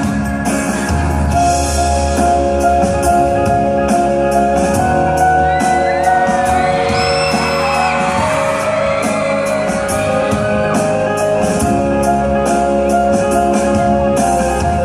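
Live pop ballad played in a hall during an instrumental break: sustained chords over a steady drum beat. High wavering shouts and whoops from the audience rise over the music around the middle.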